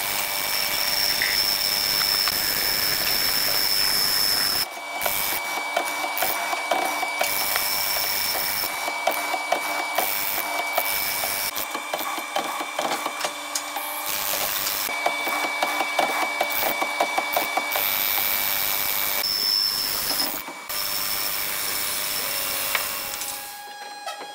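Woodworking power tool cutting into wood: a steady high whine over a rasping cut with many small ticks. The sound changes abruptly several times.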